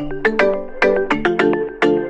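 Background music: a quick melody of bright notes with sharp starts that fade away, about five notes a second.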